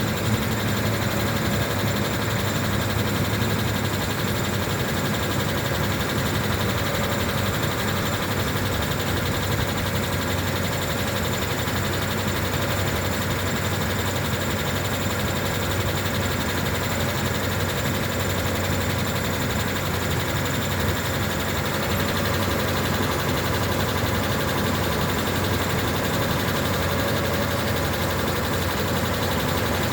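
Mitsubishi Pajero engine running steadily, recorded for a knock that the owner hears in it.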